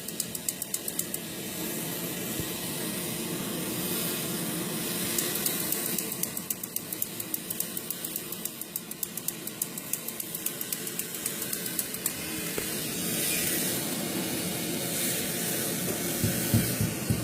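Soldering torch flame hissing steadily as it heats a copper pipe joint for sweating solder, with stretches of fast crackling.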